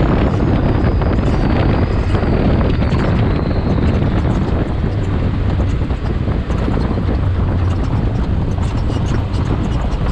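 Can-Am Maverick X3 XRC Turbo's turbocharged three-cylinder engine running steadily as the side-by-side drives over sand, with wind noise on the microphone. A faint high whine falls slowly in pitch over the first few seconds.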